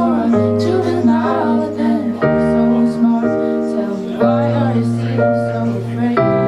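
Live band music: sustained keyboard chords over a bass line, the harmony changing every second or two.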